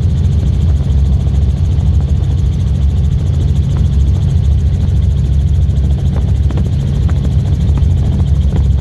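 Helicopter running in flight: a loud, steady, low drone of engine and rotor.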